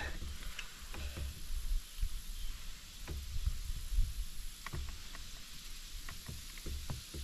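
Irregular light knocks and bumps of gear and hands moving about inside a fishing kayak, over a steady faint hiss.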